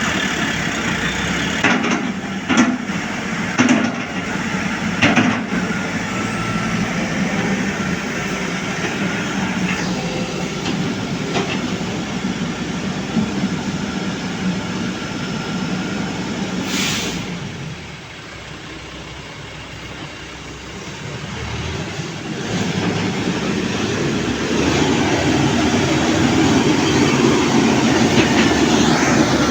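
A machine vehicle running and travelling, with a steady rattling rumble. Several sharp knocks come in the first few seconds; it eases off for a few seconds past the middle and then runs louder near the end.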